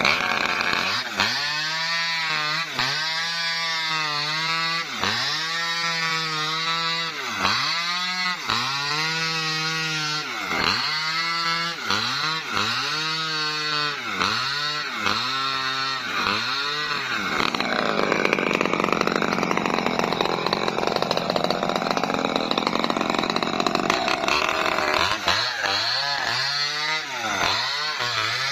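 Small Maestro two-stroke chainsaw ripping lengthwise along a felled coconut palm trunk. The engine note rises and falls about once a second as the bar works in the cut, turns to a rougher, steadier cutting noise for several seconds in the middle, then swings up and down again near the end.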